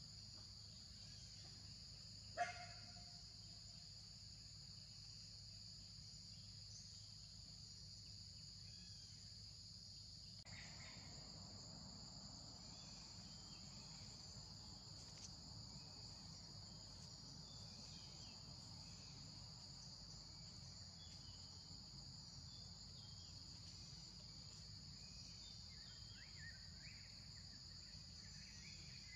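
Faint, steady high-pitched insect chorus droning without a break. A single short, sharp call cuts through it about two seconds in, and a few faint chirps come near the end.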